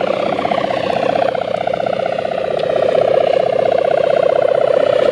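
Sendaren kite hummer on a flying pegon kite: a bow of spliced ori bamboo strung with gift ribbon, vibrating in the wind with a loud, steady, fluttering drone.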